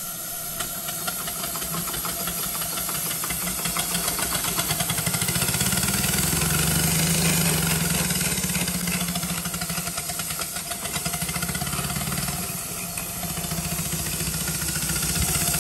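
A 2-inch scale Burrell traction engine model running under steam, its exhaust chuffing in a rapid, even beat over a steady steam hiss. The beat grows louder toward the middle, dips briefly a few seconds before the end, then picks up again.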